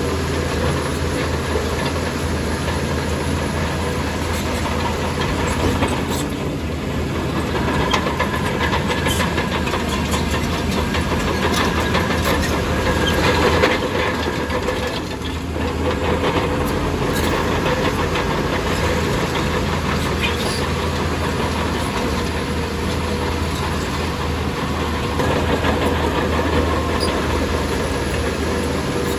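Crawler bulldozer's diesel engine running steadily while working, with scattered clanks from its steel tracks.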